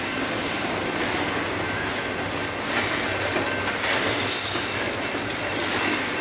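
Loaded double-stack intermodal container cars rolling past, a steady clatter and rumble of steel wheels on rail, louder and higher-pitched for a moment about four seconds in.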